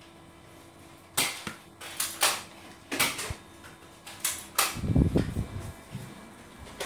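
A toy foam-dart blaster fired in quick, irregular shots, about seven sharp pops over four seconds, followed by a louder dull thump about five seconds in.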